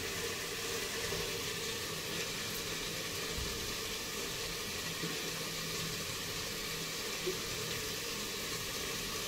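Diced potatoes frying in oil in a kadhai, giving a steady, even sizzle. A soft low thump comes about three and a half seconds in.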